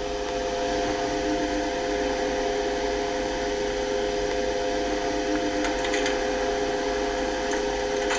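Steady mechanical hum with several steady pitched tones over a noisy drone, with a fainter lower tone that fades in and out: the hum of a lift running as its car travels.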